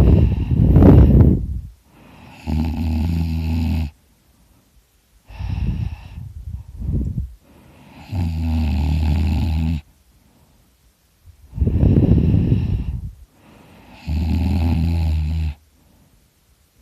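A person snoring loudly in sleep. Three times, about every six seconds, there is a steady low buzzing snore, and between them come rushing, noisy breaths.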